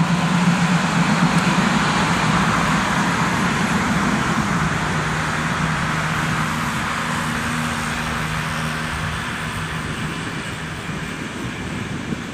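A tram and road traffic passing at street level: a steady rolling rush with a low hum, growing slowly quieter as the vehicles move away.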